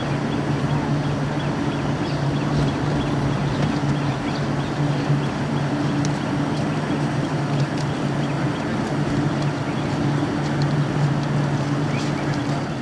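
Diesel engine of a standing train idling with a steady low hum, over the mixed noise of a crowd of passengers on the platform.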